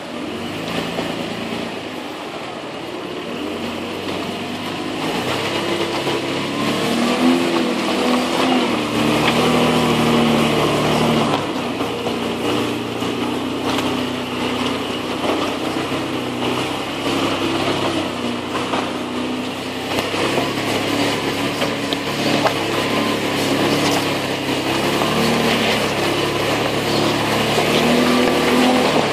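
Toyota Land Cruiser 4.5 VX's 4.5-litre straight-six petrol engine pulling the truck along an off-road dirt track, its revs rising and falling with the throttle, heard from outside the driver's window beside the front wheel.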